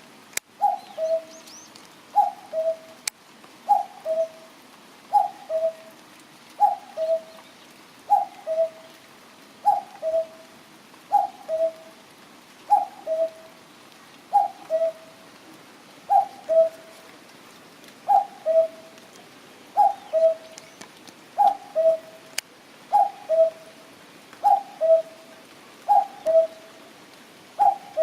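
Common cuckoo calling its two-note "cuck-oo", a higher note falling to a lower one, repeated steadily about once every second and a half.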